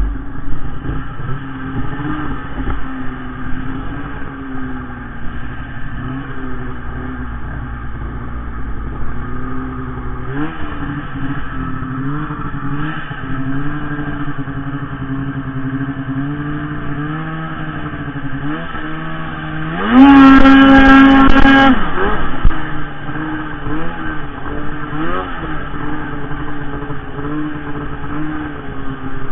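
Arctic Cat M8000 snowmobile's two-stroke engine running under changing throttle, its pitch rising and falling, with a loud two-second burst of full throttle about twenty seconds in.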